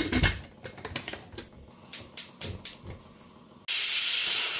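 Clicks and clatter of a stainless steel pressure cooker's lid being fitted and locked shut. About three and a half seconds in, the cooker suddenly starts venting steam through its weight with a loud, steady hiss: its whistle, the sign that it has reached pressure.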